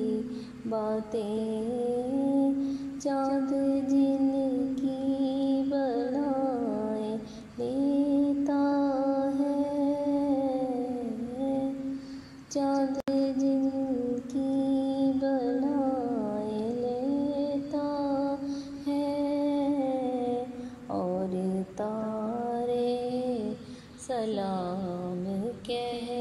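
A woman's voice humming a slow naat melody without words, in long held notes with gliding turns between them.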